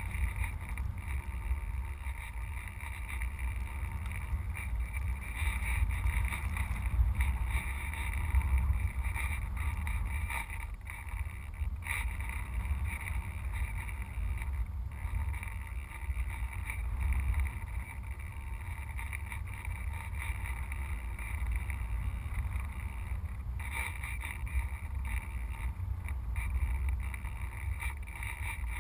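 Airflow buffeting a GoPro mounted on a radio-controlled sailplane in flight: a steady low wind rumble on the microphone that swells and eases as the plane flies.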